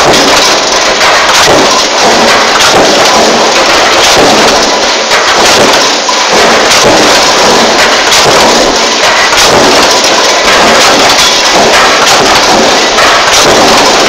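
Loud, distorted din of a mechanical power press running a progressive die that stamps steel junction boxes. The noise is a continuous roar, broken by knocks from the press strokes, and it overloads the microphone.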